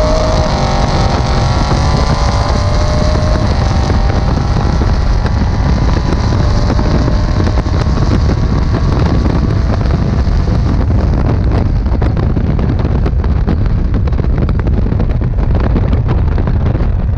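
Twin-turbo 427 V8 in an LS-swapped 1961 Buick Skylark at full throttle, its note rising through the gears on a standing half-mile pass, heard from outside on the hood with heavy wind noise. About ten seconds in the engine note fades and wind buffeting takes over as the car slows.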